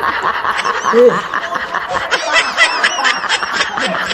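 Rapid, high-pitched snickering laughter: a fast string of short giggling notes that gets busier about two seconds in.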